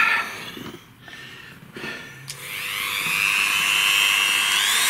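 A Dremel rotary tool switched on about two seconds in after a few knocks and clicks; its whine rises as the motor spins up, then runs steady and high-pitched, stepping up a little in pitch near the end. It is running free, not yet cutting.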